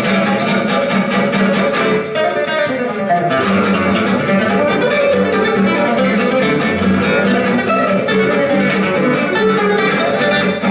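Live acoustic jazz trio of lead guitar, rhythm guitar and double bass: the rhythm guitar strums a steady beat under the lead guitar's line and the plucked bass. About two seconds in the strumming briefly stops, then the beat comes back.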